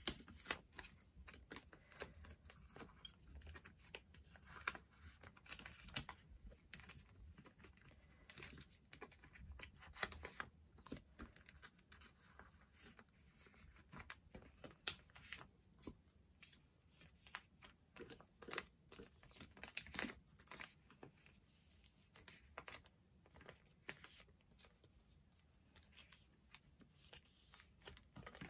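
Plastic card sleeves crinkling and photocards being handled and slid into binder pockets: many short, scattered rustles and light taps.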